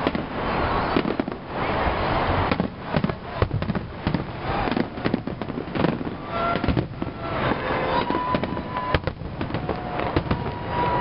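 Fireworks display: a dense run of bangs and crackling as shells burst. In the second half a few short, thin, steady whistle-like tones sound over it.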